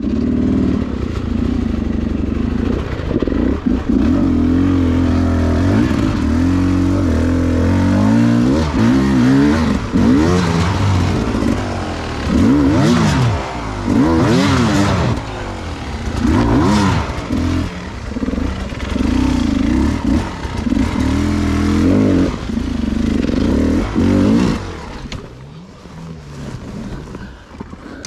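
Beta 300 two-stroke enduro motorcycle being ridden hard, its engine revving up and falling back again and again as the throttle is worked. The engine drops quieter for a couple of seconds near the end, then picks up again.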